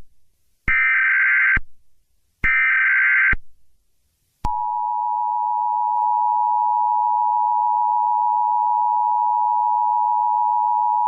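Emergency Alert System broadcast: two buzzing SAME header data bursts, about a second each with short gaps between, then at about four and a half seconds the steady two-tone EAS attention signal starts and holds.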